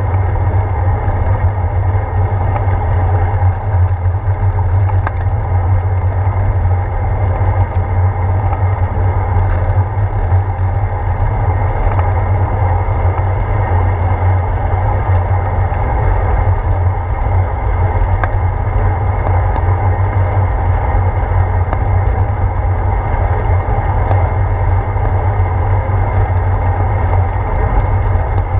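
Steady wind rumble and rolling road noise picked up by a handlebar-mounted GoPro Hero 4 on a bicycle riding along wet pavement, with a couple of faint clicks from bumps.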